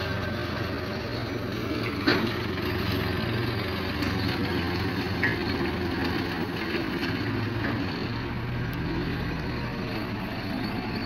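Forklift engine running steadily as it drives, with a single sharp knock about two seconds in.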